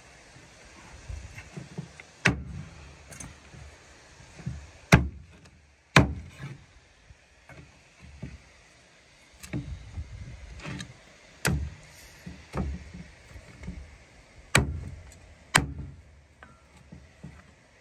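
A cleaver chopping through small game birds on a plastic cutting board set on a truck tailgate: irregular sharp chops every one to three seconds, with softer knocks and taps between them.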